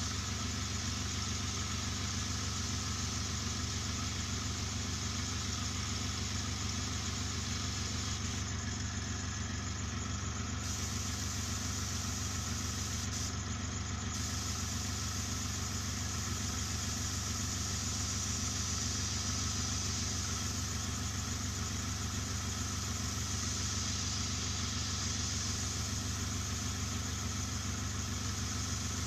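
Airbrush setup running steadily: a compressor's low motor hum under a constant hiss of air.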